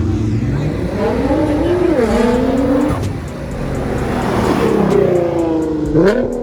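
Car engine revving under acceleration: its pitch climbs, falls back twice as if shifting up, then rises sharply in a quick blip near the end.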